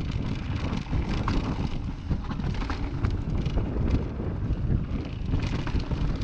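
Mountain bike riding fast downhill over rocky dirt singletrack: heavy wind buffeting on the camera microphone and tyre rumble, with scattered clicks and rattles from the bike jolting over rocks and roots.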